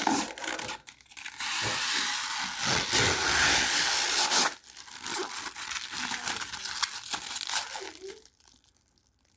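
Protective plastic film being peeled off a new PC case: a long, steady ripping peel of about three seconds, then softer crinkling and rustling of the film that stops about a second before the end.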